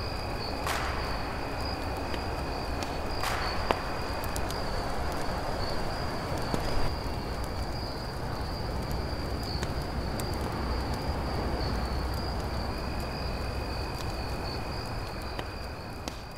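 Night insects trilling steadily: a continuous high tone with a lower trill coming and going, over an even background hiss broken by a few sharp clicks. The whole ambience fades out near the end.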